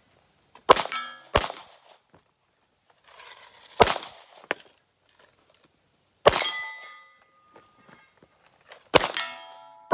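A .22 rimfire pistol fires a string of about five sharp, unevenly spaced shots at steel plates. Each shot is followed by the ring of a struck steel target.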